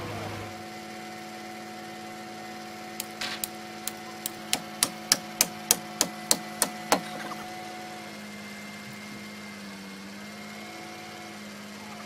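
A hammer striking about a dozen times. The blows start sparse and quicken to about three a second, each a sharp, ringing crack, over the steady hum of a crane truck's idling engine.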